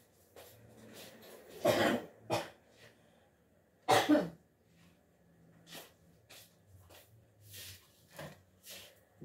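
A person coughing: two loud coughs about two seconds apart, the first followed quickly by a softer one. Later come only faint light ticks and rustles.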